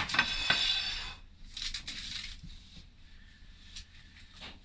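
A metal cake pan clanks against a countertop with a short metallic ring that dies away within about a second, followed by softer handling and rustling noises.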